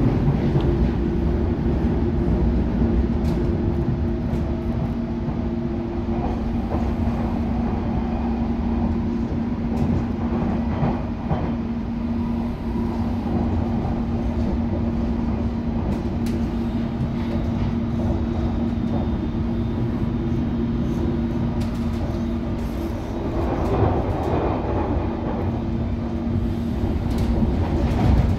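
London Underground District line train running at speed, heard from inside the carriage: a steady low rumble under a constant motor hum, with scattered clicks of the wheels over rail joints and points.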